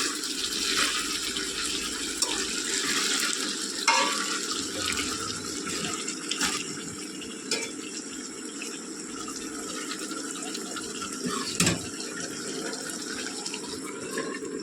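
Chicken frying down in plenty of oil with ground spices (kasha), a steady sizzle, with a few sharp knocks of the stirring spoon against the pan.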